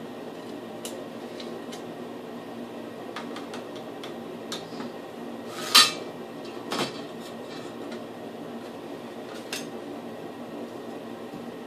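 Light clicks and metallic clinks of tools and hardware being handled, with the loudest clatter about six seconds in and a second one a second later, over a steady low hum.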